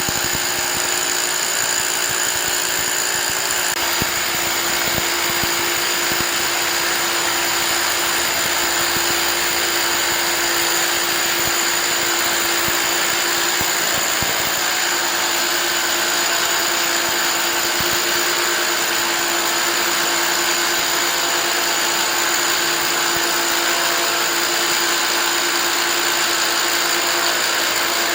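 Hammer drill boring into concrete, running continuously at an even pitch without stopping.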